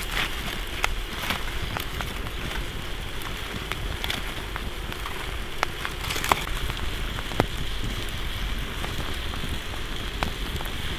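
Meat sizzling in a frying pan over an open campfire: a steady hiss with scattered sharp pops.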